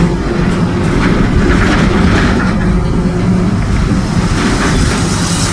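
Inside a moving Mercedes-Benz OF-1722M bus: the diesel engine and drivetrain running with the differential growling, a steady loud drone over road noise.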